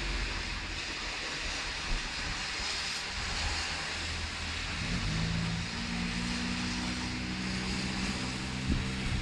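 Steady hiss of rain and traffic on a wet street, with a low steady engine drone coming in about halfway.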